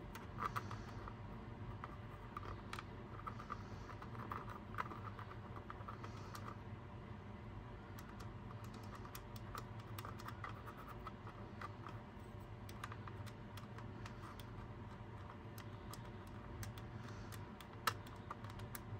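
Faint, irregular small clicks and scratches of a plastic pry tool and fingertips working a small spring-loaded switch on an opened portable CD player, over a low steady hum.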